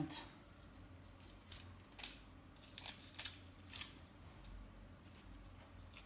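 Scissors snipping at the end of a shielded (STP) network cable to strip it: several short, crisp cuts, most of them bunched between about two and four seconds in.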